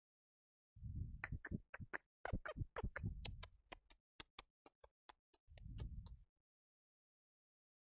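A quick, irregular run of about twenty sharp light clicks, mostly three to four a second, with low muffled bumps under them; it starts about a second in and stops about two seconds before the end.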